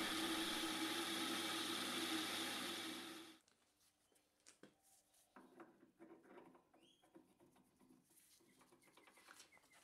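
Metal lathe running while turning down a steel shaft: a steady motor hum with a hiss, cut off suddenly about three seconds in. After that only a few faint light clicks, as a bored steel piece is handled and slid onto the shaft.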